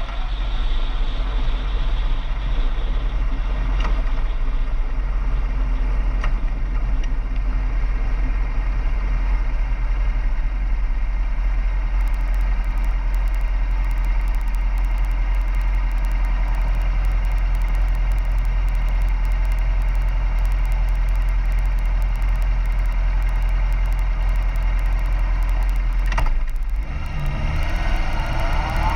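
Steady low wind rumble and road noise from a moving vehicle. Near the end an engine rises in pitch as it accelerates.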